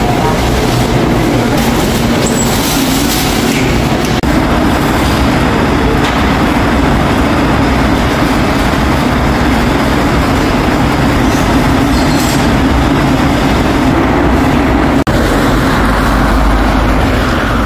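Busan Metro subway train running: a steady, loud rumble with rail and wheel noise.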